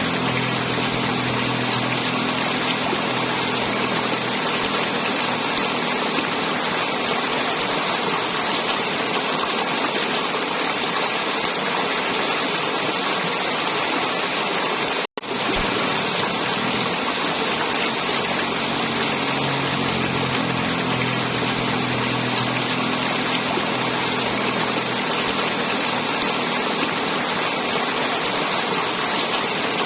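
River water flowing and gurgling steadily as a loud, even rush. The sound cuts out for a split second about halfway through.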